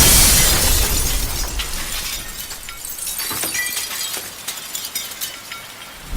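Instrumental break of a Bollywood song: a loud crash of noise at the start that slowly fades away over several seconds, with faint bits of music in it.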